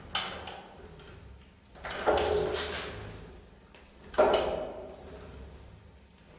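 Electric scooter hub-motor wheel spun up by throttle blips: a click at the start, then twice, about two seconds apart, a sudden knock as the motor engages, followed by a fading whir as the wheel spins down. The owner suspects a faulty Hall sensor in the motor wheel is behind the knock.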